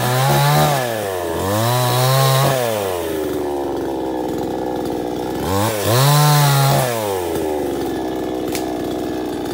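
Salem Master gas chainsaw running, its engine revved up and let back down three times, with a steady, lower-pitched run between revs. Near the end it is held steady while cutting into a fallen log.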